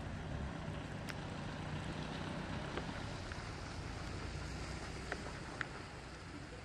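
Steady outdoor background noise: a low rumble with a hiss over it, broken by a few faint ticks, easing slightly near the end.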